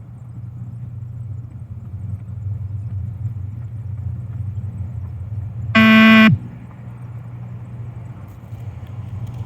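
A single beep-test shuttle beep, a loud buzzy tone lasting about half a second, sounds about six seconds in over a steady low hum. The beep marks the end of a timed shuttle, when the runner must reach the line.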